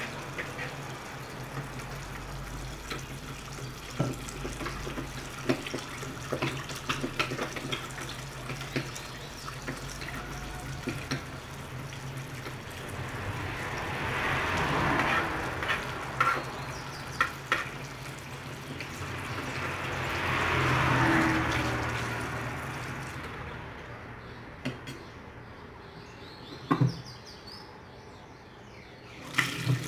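Tap water running into a laundry sink, with small splashes and knocks from hands working in the water. The rush swells louder twice about halfway through, then drops away for the last few seconds.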